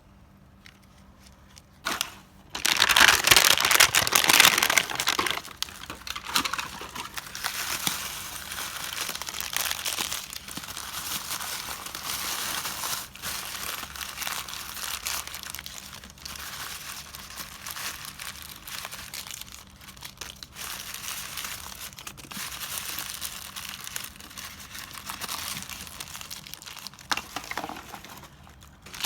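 Toy packaging wrapping being unwrapped by hand, crinkling and tearing. It starts about two seconds in, is loudest for the first few seconds, then goes on more softly, with a brief louder bit near the end.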